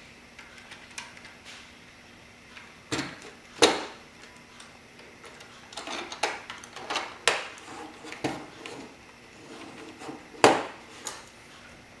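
Plastic Lego parts of a Lego puzzle box clicking and knocking as the box is handled and its mechanism worked by hand: a string of separate clicks and knocks, the loudest about three and a half and ten and a half seconds in.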